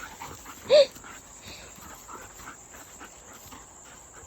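A dog gives a single short, sharp bark about a second in. Faint small noises of movement follow.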